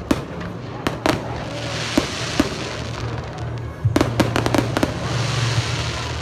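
Aerial fireworks shells bursting with sharp bangs, several in quick succession about four seconds in, followed by a spreading crackle from the bursting stars.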